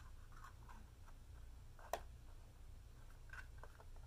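Near silence: a steady low room hum with faint rustling of a sheet of paper held in the hands, and one sharp click about two seconds in.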